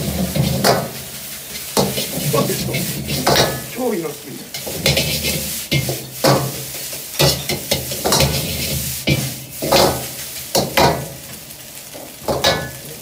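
Egg and rice for fried rice sizzling in a wok over a high gas flame, with a metal ladle clanking and scraping against the wok about once a second at an uneven pace. A steady low hum runs beneath.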